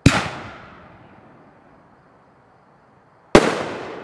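Two loud firework bangs about three seconds apart, each followed by a rolling echo that dies away. The second is a consumer aerial shell from a Black Cat Black Mamba shell kit bursting into red and white stars.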